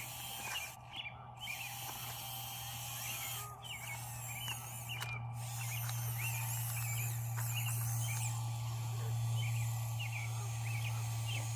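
Small electric motor of a radio-controlled Bruder CAT toy excavator humming steadily as it digs, getting somewhat louder in the second half.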